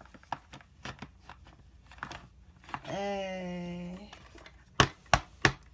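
Plastic pieces of a toy castle kit being handled, with small clicks and rustles throughout and three sharp plastic clicks near the end. In the middle a child's voice gives a drawn-out, puzzled "hmm".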